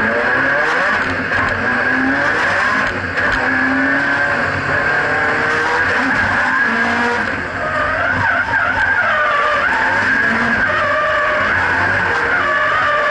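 Nissan 180SX's turbocharged SR20DET four-cylinder, heard from inside the cabin, running hard and rising and falling in pitch while the tyres squeal as the car drifts. The squeal wavers in pitch through the second half, with brief dips in loudness about 3 s and 7.5 s in.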